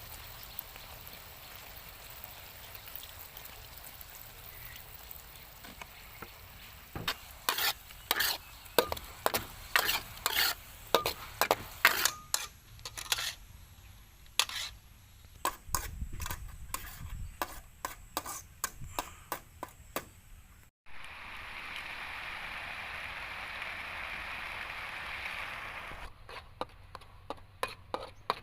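Garlic, chili and seasonings sizzling in hot oil in a pan, with a spatula stirring and clacking against the pan in quick repeated strokes. After a brief cut, there is a steady sizzle, then more stirring clacks near the end.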